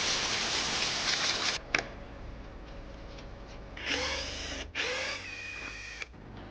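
A power tool runs in bursts: about two seconds of loud hissing noise at the start, then two short runs with a motor whine about four and five seconds in.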